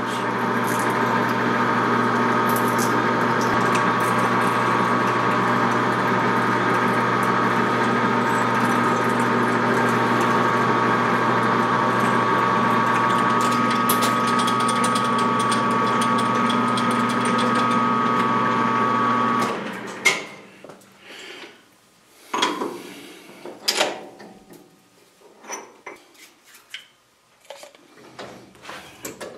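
Metalworking machine spindle running steadily at 400 RPM, drilling a steel tractor axle housing, then shutting off about 19 seconds in. Scattered metal clinks and knocks follow from handling tooling.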